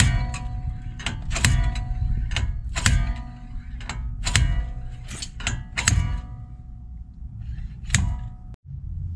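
Slide hammer yanked again and again, its weight slamming into the end stop in sharp metallic clanks that ring briefly. There are about a dozen strikes in uneven bursts, then a pause and one last strike near the end. The hammer is pulling a stuck wheel hub and bearing assembly out of the knuckle.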